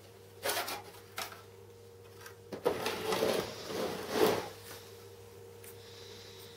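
Sheet-metal cover of a homemade welder case being lifted off and set down on a wooden bench: a couple of light knocks, then about two seconds of metal sliding and clattering.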